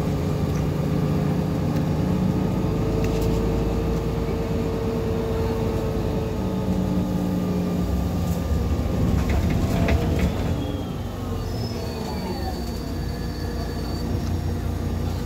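Interior sound of a Solaris Urbino 15 III city bus under way: the diesel engine and Voith automatic gearbox running with a steady rumble and several whining tones that slowly shift in pitch. About ten seconds in a whine falls in pitch and the sound eases off a little, with a few light rattles and clicks.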